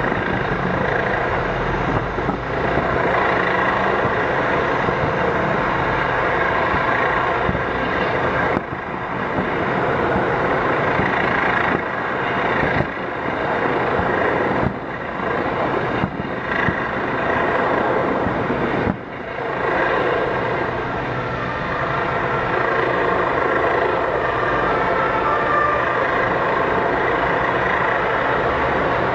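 Fireworks display heard from afar: a continuous dense crackling rumble that dips briefly a few times.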